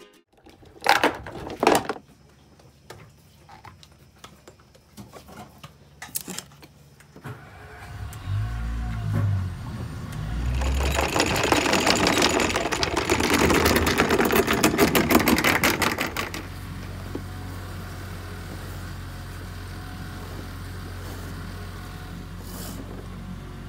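A sailing catamaran's gasoline engine started with the key: two short low bursts as it is cranked, then a loud, fast rattle for about five seconds before it settles into a steady low idle. Two sharp knocks come about a second in.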